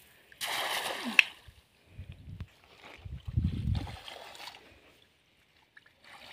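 Cast net splashing down onto the water about half a second in, ending with a sharp slap. Two low, muffled rumbles follow.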